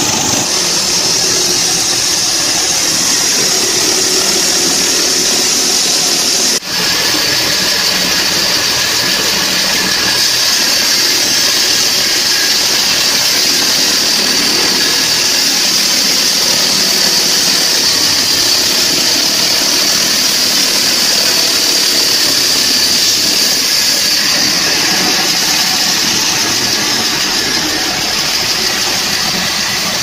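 Petrol-engine portable horizontal band sawmill running steadily while its band blade cuts through a log, a constant engine noise under a loud high hiss. The sound dips briefly once, about six and a half seconds in.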